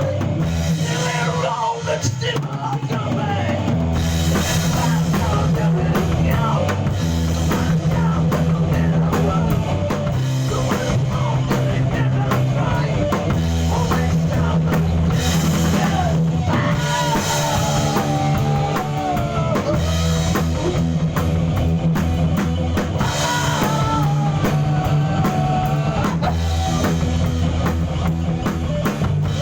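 A rock band playing live: drum kit, bass and electric guitar, with a lead line that bends and wavers over the top.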